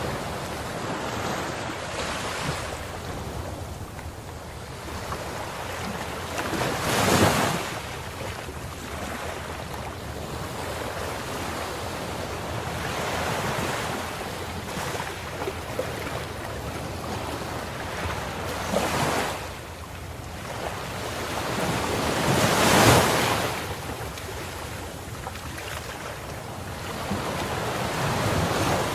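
Ocean waves breaking on the shore, a continuous rush of surf that swells up as the bigger waves break, about 7, 19 and 23 seconds in.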